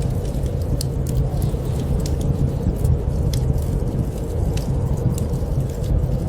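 Wood fire in a fireplace crackling, with sharp irregular pops over a steady low rumble.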